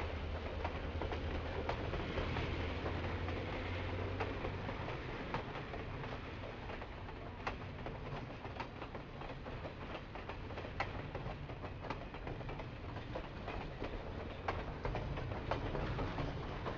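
Great Smoky Mountains Railroad passenger cars rolling past with a steady rumble and sharp, irregular clicks of the wheels over the rail joints. A low hum fades away in the first few seconds.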